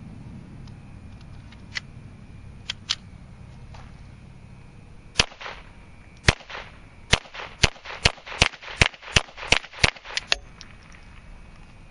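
Ruger Mark I .22 Long Rifle semi-automatic pistol firing about ten shots. The first two come about a second apart, then the rest follow quickly at about three a second, the pistol cycling each round without a malfunction. A few faint clicks come a few seconds before the first shot.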